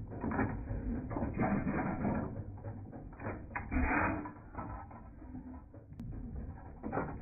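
Antique stationary gas engine running, its gears and valve gear making an irregular mechanical clatter that swells louder about one and a half to two seconds in and again around four seconds in.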